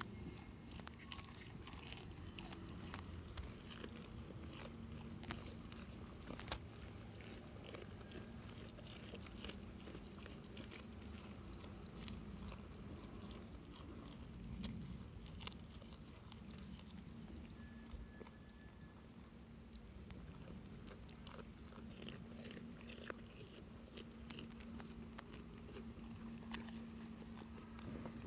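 Goats biting and chewing fresh broad bean (fava) pods: a steady run of small crunching clicks.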